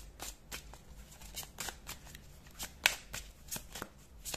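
A deck of tarot cards being shuffled by hand: a run of irregular crisp card snaps and slaps, with one louder slap nearly three seconds in.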